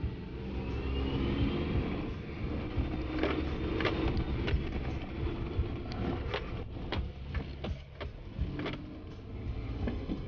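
Suzuki Jimny kei-car driving over a bumpy dirt track, heard from inside: a steady low engine rumble with repeated knocks and rattles as the body and suspension jolt over the ruts.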